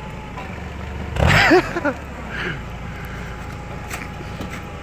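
Forklift engine running low and steady. About a second in, a person gives a short call without words, its pitch rising and falling, which is the loudest sound here.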